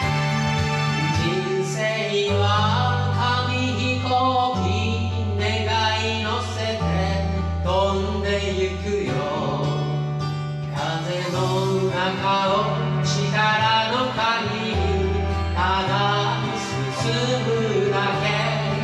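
A man singing into a karaoke microphone over the karaoke backing track of a J-pop song. The accompaniment plays alone at first, and the voice comes in about two seconds in.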